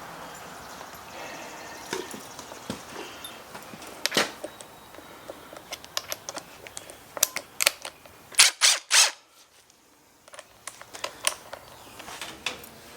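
Scattered sharp clicks and knocks of tools being handled, with three loud sharp knocks in quick succession about eight and a half seconds in.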